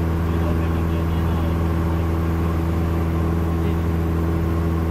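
Cessna 172's piston engine and propeller droning steadily in cruise, heard from inside the cabin as a loud, unchanging low hum with several steady tones.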